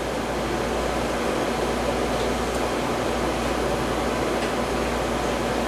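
Steady whooshing of a running fan, an even noise with a low hum beneath it that does not change.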